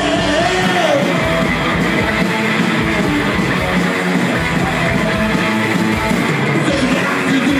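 Punk rock band playing live, loud and steady, led by electric guitar.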